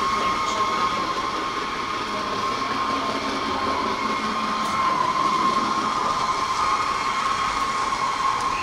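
Model train running along the layout's track: a steady electric-motor whine over the rolling noise of its wheels.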